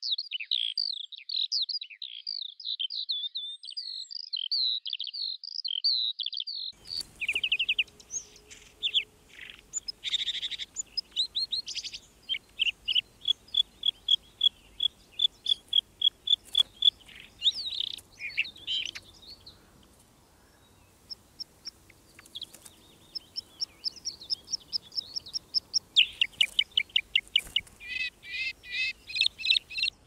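Bluethroat singing: varied phrases of rapid notes, trills and repeated-note series, among them a run of about four clear notes a second, separated by short pauses. For about the first seven seconds a different recording holds the continuous fast warble of another songbird.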